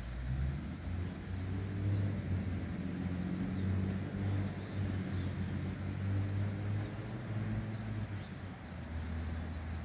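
A vehicle engine running with a low, wavering hum, and a few faint bird chirps high above it.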